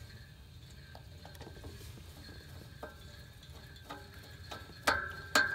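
Screwdriver turning the screw that holds the handle on a steam radiator's brass supply valve: small metallic clicks, then two sharp metal clinks with a brief ring near the end.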